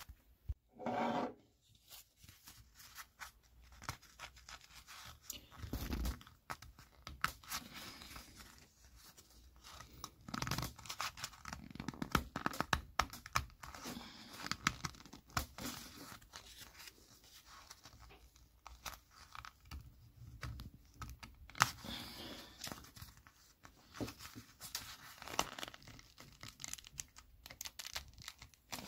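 Stiff tarpaulin fabric being folded, flexed and pulled by hand, crackling and rustling in irregular bursts as a cured liquid patch on it is put to the test. There is a brief pitched sound about a second in.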